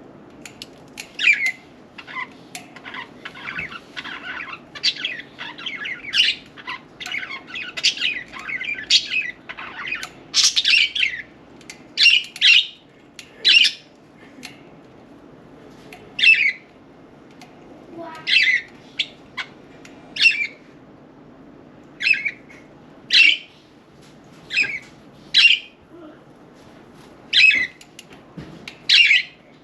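Several budgerigars chirping and squawking: a dense run of chatter for the first ten seconds or so, then single sharp calls every second or two.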